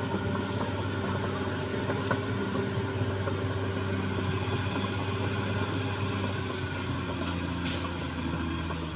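CAT D6R XL bulldozer's diesel engine running steadily under work, easing slightly lower in pitch near the end.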